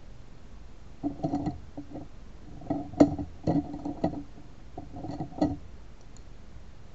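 A series of light knocks and clicks from small hard objects handled on a desk, in uneven clusters from about one to five and a half seconds in.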